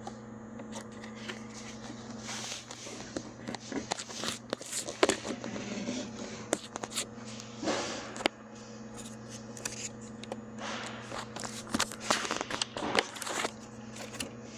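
Irregular clicks, taps and scrapes of a door-handle Bowden cable and plastic trim being handled and clipped into a car door, over a steady low hum.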